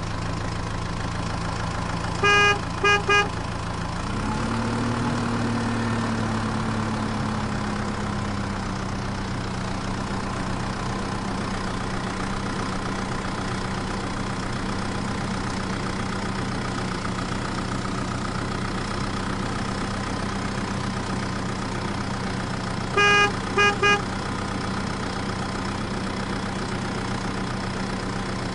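A vehicle engine running steadily, its pitch rising briefly about four seconds in and then settling back. A horn toots three times in quick succession near the start and again near the end.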